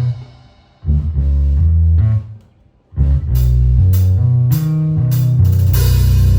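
A live band of bass, electric guitar and drum kit playing in stop-start phrases. The band drops out twice, briefly. It comes back in with four evenly spaced accented hits, then settles into a held full-band chord near the end.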